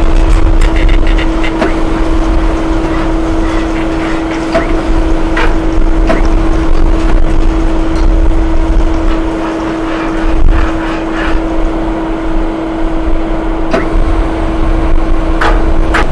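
Electric gantry crane's hoist running with a steady hum over a low rumble, with scattered metal clanks from the steel pipe mould hanging on its hook.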